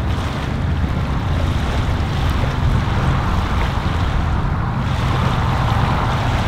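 Motorboat engine running steadily as the boat speeds across open water, over a steady noise of wind and waves.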